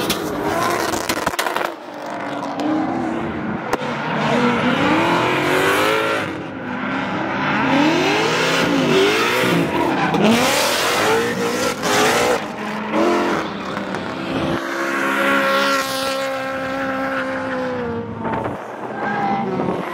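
Drift cars' engines revving hard, the pitch climbing and dropping as the throttle is worked, with tyres squealing as the cars slide. For a few seconds late on one engine is held steady at high revs.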